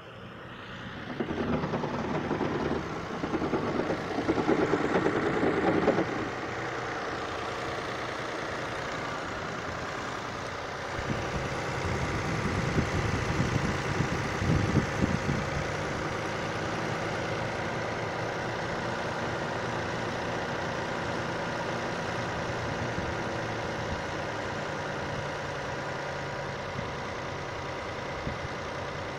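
Lexus RX 400h's 3.3-litre V6 petrol engine kicking in about a second in and running louder and uneven for several seconds, then settling into a steady idle, with a second louder stretch about 11 to 15 seconds in. The owner reports a knock from the engine bay on this car, which also shows ABS, VSC and hybrid system faults.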